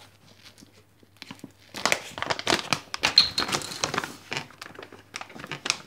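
Plastic bag of chia seeds crinkling and rustling as it is handled, starting about two seconds in.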